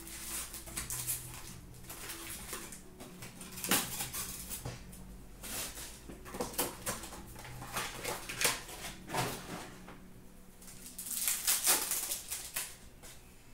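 Hands handling a 2016-17 Upper Deck Ice hockey card box and its packs: scattered clicks and rustles of cardboard and cards, with a burst of wrapper crinkling as a pack is torn open about eleven seconds in.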